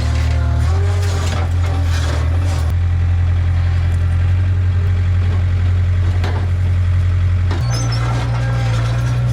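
Background music with a deep, steady bass line that changes note a few times.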